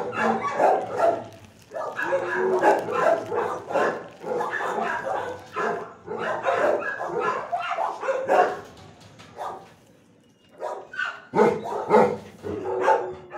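Several shelter dogs barking in their kennels, a near-continuous din of overlapping barks that eases off briefly about ten seconds in, then picks up again.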